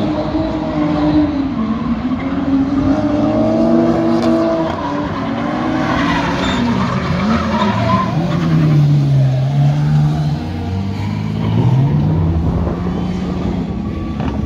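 Drift cars in a tandem competition run, their engines revving up and down as the drivers work the throttle, with tyres squealing and skidding. The engine pitch drops lower about two-thirds of the way through, then climbs again.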